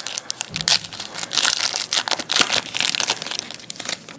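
Plastic wrapper of a trading-card pack crinkling and crackling as it is torn open and handled, in dense irregular crackles that die down near the end.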